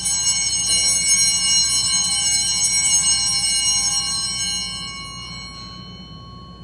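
Altar bell rung at the elevation of the host during the consecration: one long ringing tone with many high overtones, holding for a few seconds and then fading out about five and a half seconds in.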